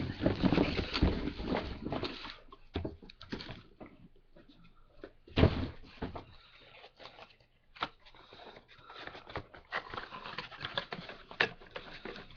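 Packaging and items being handled during an unboxing: rustling with scattered clicks and knocks, and one heavy thump about five and a half seconds in.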